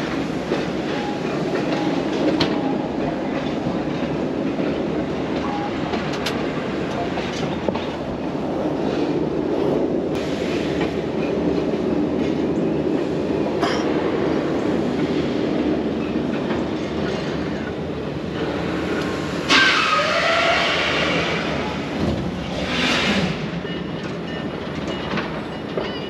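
Park train passing below, a steady rumble with clattering wheel clicks. About twenty seconds in, a louder, higher-pitched sound rises briefly over it.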